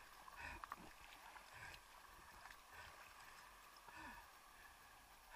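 Faint sea water lapping and gurgling close to the microphone, with a few soft sloshes.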